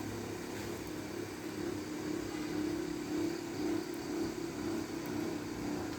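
Satay-skewer sharpening machine running steadily, its motor giving a constant hum.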